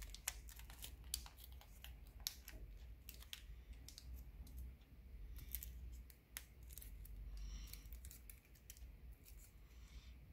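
Origami paper being folded and creased by hand: faint, irregular small clicks and crinkles of the paper.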